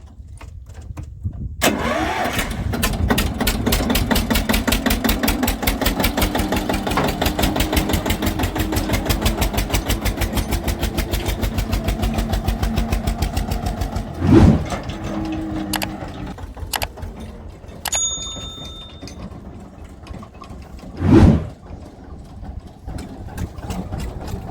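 A tractor's diesel engine starts about two seconds in and runs with a fast, even chugging, then drops lower after about fourteen seconds. Two brief loud noises come about fourteen and twenty-one seconds in.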